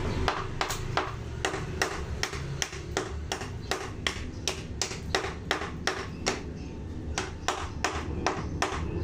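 Hammer striking the wall repeatedly at an even pace, about three sharp blows a second, each with a slight metallic ping.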